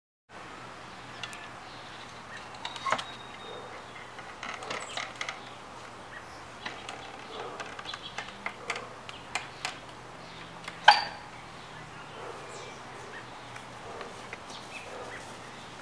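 Outdoor backyard ambience with scattered small clicks and knocks from a wooden fence gate being opened and passed through, the loudest a sharp click about eleven seconds in.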